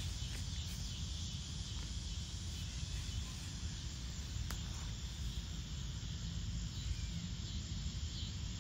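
Steady outdoor ambience: a low rumble with a constant high-pitched insect hum over it.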